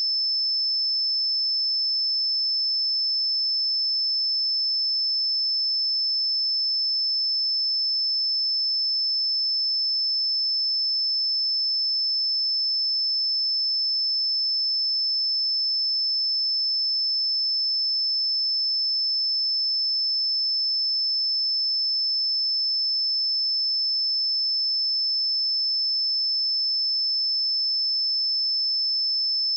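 A steady, high-pitched pure sine-wave test tone at 5264 Hz, held at one unchanging pitch and level.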